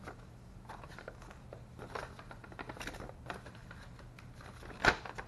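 Paper leaflets rustling as they are shuffled and folded by hand, with a sharp click near the end.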